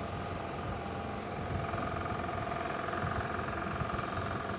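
Steady mechanical hum with a constant whine, growing a little louder in the second half.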